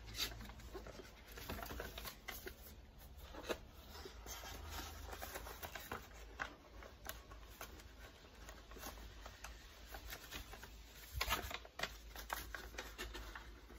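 Faint rustling and scattered small clicks of things being handled, with a brief cluster of louder clicks about eleven seconds in.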